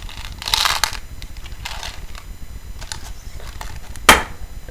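Brief rustling and handling noises, then a single sharp knock about four seconds in.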